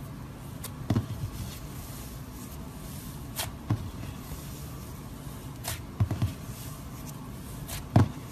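Fluffy white slime pressed and pulled apart by fingers, giving scattered soft pops and crackles, about ten over several seconds and the loudest near the end, over a steady low hiss.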